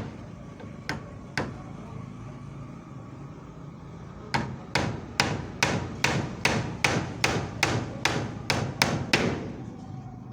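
Hammer driving nails into timber: two single blows about a second in, then after a pause a steady run of about a dozen strikes, two or three a second, stopping about a second before the end.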